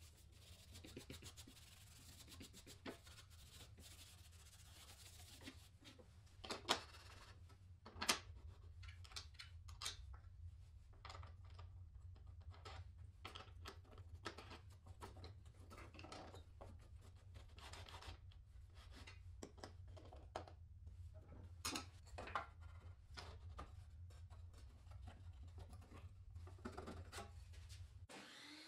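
Faint rubbing and scraping of hand work on wood, with scattered clicks and a few sharper knocks, over a steady low hum that cuts off near the end.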